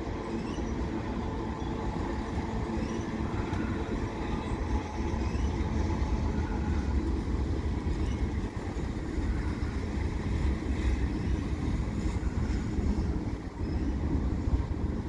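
A mixed freight train's tank cars and boxcars rolling past at steady speed: a continuous low rumble of wheels on rails.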